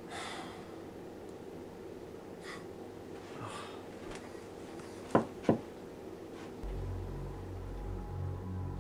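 Two sharp knocks on a door, about a third of a second apart. They are preceded by a few soft breaths, and a low, droning horror music bed comes in about a second after them.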